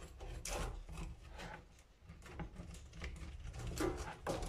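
Hands handling a kitchen faucet's braided hoses and plastic mounting parts: faint rubbing and scraping with irregular light clicks and knocks, a louder one about half a second in and a cluster near the end.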